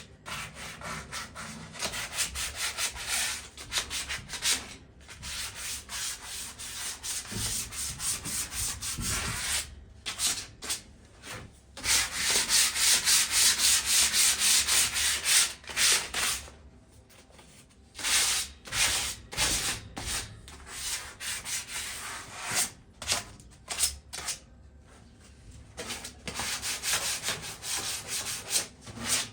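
Sandpaper scrubbing back and forth on a metal patio chair in quick, rhythmic strokes, stopping briefly a few times, to take off light surface rust before spray painting.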